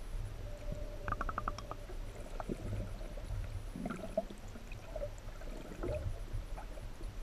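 Muffled underwater sound from a submerged camera: a low rumble of moving water with scattered gurgles and small bubbly clicks.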